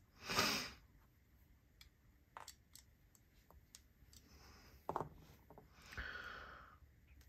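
Small metallic clicks and taps of a Wingman EDC Mach 3 folding knife and its pivot driver being handled while the pivot is adjusted, the blade not yet centered. Two short hissing rushes of noise stand out, the louder one just after the start and a softer one about six seconds in.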